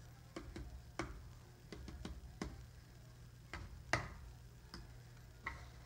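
Irregular light taps and soft knocks as a hand dabs wet coffee grounds onto heavy paper on a wooden table, about eight in all, the loudest about four seconds in.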